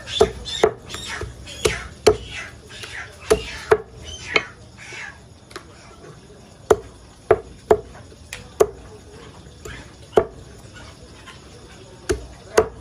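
Heavy cleaver chopping raw chicken on a thick wooden chopping block: about fifteen sharp chops at irregular spacing, some in quick pairs, with pauses between cuts.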